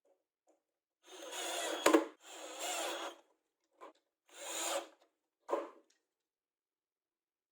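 A handful of rasping hand strokes, each up to about a second long, of something rubbed across an abrasive or wooden surface. There is a sharp knock about two seconds in.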